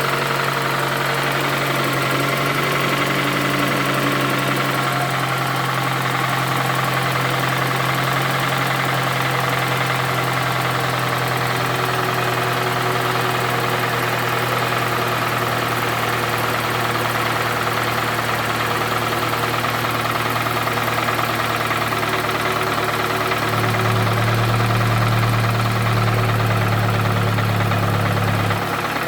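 Toyota Camry's 2AZ 2.4-litre four-cylinder engine running loudly at idle with a knock, a badly worn engine that smokes from under the valve cover. Near the end its low hum grows louder and heavier for about five seconds, then settles back.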